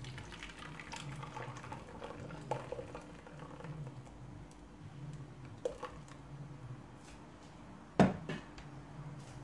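Broth poured from a metal pot through a wire-mesh sieve into another pot, splashing and trickling for the first few seconds, with small clinks. About eight seconds in, one sharp clunk of a pot being set down.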